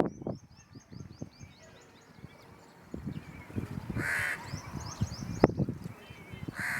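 Birds calling: a quick run of high chirps near the start and again about four and a half seconds in, with a harsh call about four seconds in and another at the end. Low knocks and rustles run underneath.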